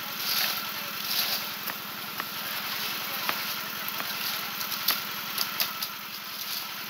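Small engine of a concrete mixer running steadily with an even fast pulse, overlaid by scattered sharp clicks and knocks, the loudest about five seconds in.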